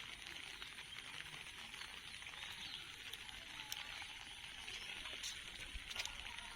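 Steady hiss of rain, with a few sharp taps in the second half.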